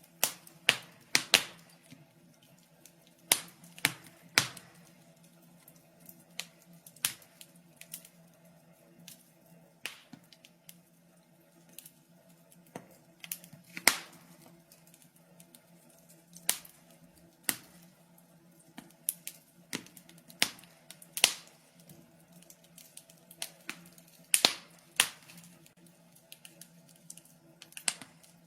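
Wood fire crackling in a fireplace: sharp pops and snaps at irregular intervals, with quieter stretches between, over a faint steady hum.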